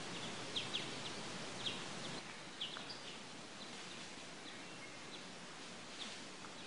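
Outdoor ambience: a small bird chirping in short, high notes, several in quick succession during the first couple of seconds and sparser after, over a steady background hiss.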